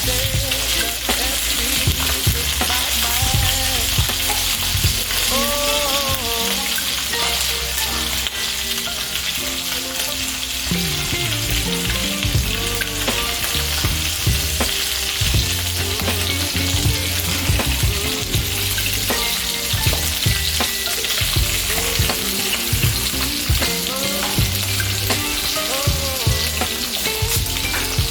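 Beef sausages frying in hot cooking oil in a pan: a steady sizzle with scattered small clicks and pops.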